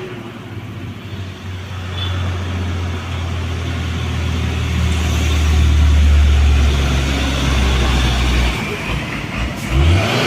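Heavy truck's diesel engine labouring up a steep grade, a deep steady drone that grows louder as it nears, peaks about six seconds in and drops away shortly before the end.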